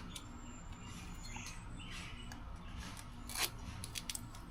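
Scratching, rustling and a few sharp clicks of an old window screen and its spline being pried and pulled out of the frame, where the screen is stuck fast.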